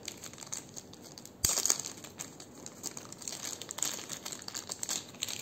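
Clear plastic bag crinkling and crackling as it is handled and pulled off a camera battery, with a sudden louder rustle about one and a half seconds in.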